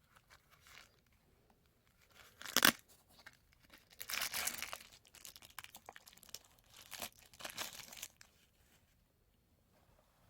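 Knife packaging being handled: a short ripping sound about two and a half seconds in, then bursts of crinkling and rustling until about eight seconds in.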